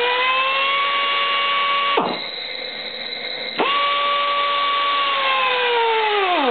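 RAD 10GX pneumatic torque wrench, set at 40 psi, running its air motor with a steady whine in two runs. The first cuts off sharply about two seconds in, followed by a quieter hiss for a second and a half. The second starts again, sags slowly in pitch and falls away near the end.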